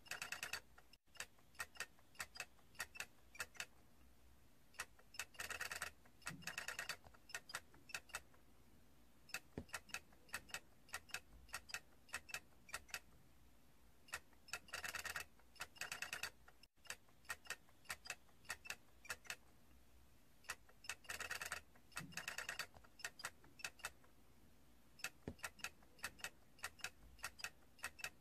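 Faint, irregular clicking and ticking, with a burst of rapid clicks three times.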